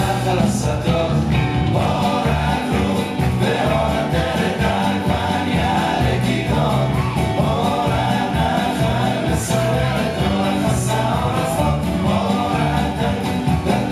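Music with singing voices over a steady low beat, playing on without a break.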